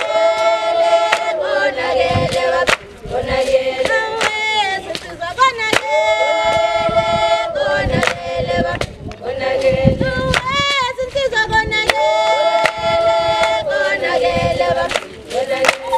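A group of girls and women singing a traditional Zulu song in unison, in long held phrases, with sharp hand claps cutting in now and then.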